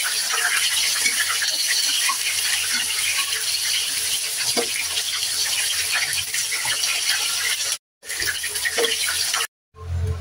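Chicken pieces sizzling and crackling as they fry in hot oil in a wok, with a metal spatula now and then knocking against the pan. The sizzle cuts out twice briefly near the end.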